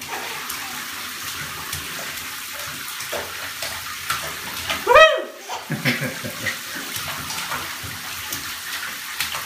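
Bathwater splashing and sloshing as a baby plays in a bathtub, with one short high squeal that rises and falls about five seconds in.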